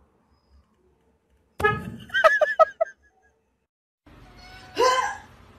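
A car horn blares suddenly, then a person laughs in four quick bursts.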